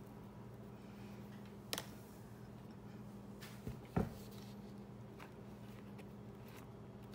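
A few light clicks and knocks of food being handled and added to a dish, the loudest about four seconds in, over a steady low hum.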